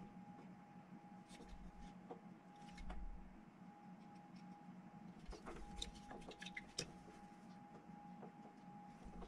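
Near silence: room tone with a steady faint hum and high whine, and a few soft clicks and taps, bunched together a little past the middle.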